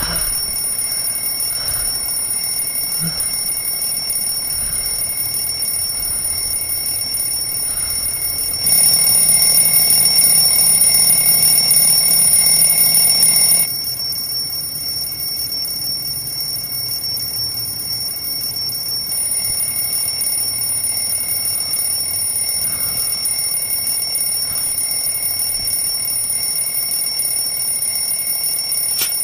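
Alarm clock ringing without a break, louder for about five seconds midway.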